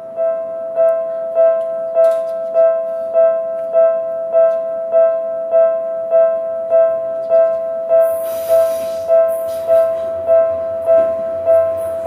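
Japanese railway level-crossing electronic warning bell on the Seibu Ikebukuro Line starting up and ringing a steady, evenly repeated "kan-kan" tone, about seven strikes every four seconds: the crossing is closing for an approaching train. From about eight seconds in, a hiss and a low rumble join in.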